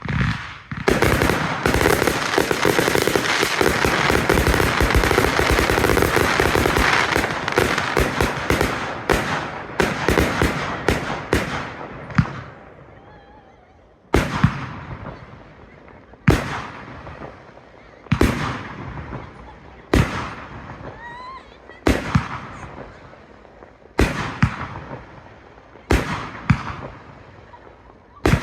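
Fireworks display: a dense barrage of rapid bangs and crackle for about the first twelve seconds, thinning out and fading, then single loud firework bursts about every two seconds.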